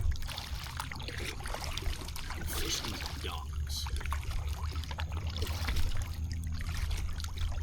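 Kayak paddle strokes splashing and water dripping and trickling off the blades, over a steady rumble of wind on the microphone.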